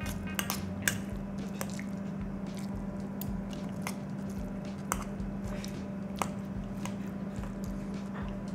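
Metal fork clinking a few times against a ceramic bowl while coleslaw is scooped up, with wet, squishy chewing, over a steady low hum.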